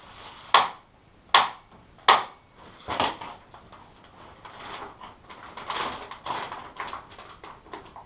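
Staple gun firing three times in quick succession, tacking horticultural polythene to a timber frame, with a softer fourth shot about a second later. Then the polythene sheet crackles as it is pulled taut and handled.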